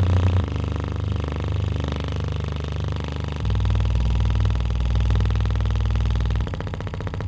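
A woofer with a foam surround playing steady deep bass test tones. The tone changes pitch a few times, and the deepest and loudest one runs from about three and a half to six and a half seconds in.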